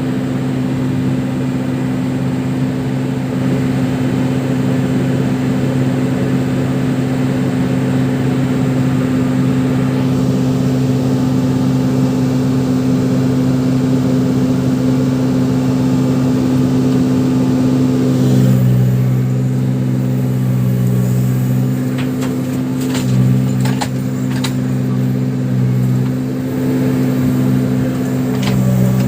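Case 580 Super backhoe loader's diesel engine running steadily. About two-thirds of the way through, its note drops and wavers as it works, with a few sharp clanks.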